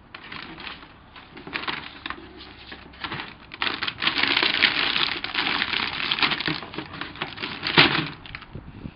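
Clear plastic bags holding plastic model-kit sprues crinkling and rustling as they are rummaged through and lifted out of a cardboard box. The crackling is busiest in the middle, with one sharp louder crinkle near the end.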